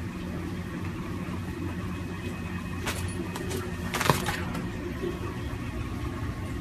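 Steady low hum with a faint hiss. A few clicks and rustles come about three to four and a half seconds in, the loudest a single sharp click near four seconds.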